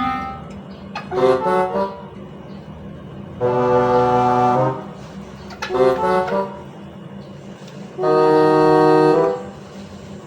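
Background music: brass-like held chords alternating with short quick runs of notes, over a steady low hum.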